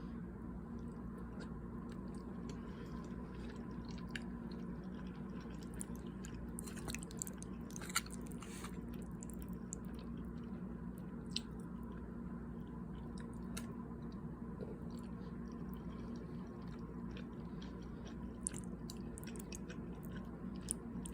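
A person chewing a mouthful of cheesy beef taco macaroni close to the microphone, with scattered wet mouth clicks and smacks over a steady low hum.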